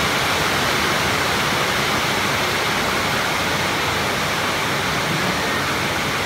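A steady rushing noise, even and unbroken, with no distinct tones or clicks.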